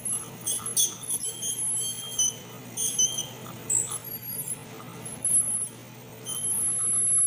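Ultrasonic dental scaler whining in short, high-pitched spurts that start and stop as its tip scrapes tartar off the teeth, with one longer whine near the end, over a steady low hum.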